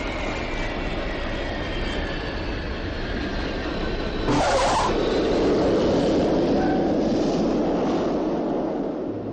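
Boeing 707 jet engines whining and rushing as the airliner lands, the whine falling slowly in pitch. A brief tyre screech at touchdown about four seconds in, then a louder, steady rush of engine noise as it rolls out, fading near the end.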